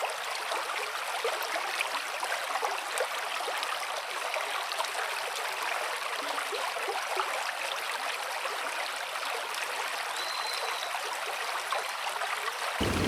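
A small river running, a steady rushing and babbling of flowing water, swollen by heavy rain.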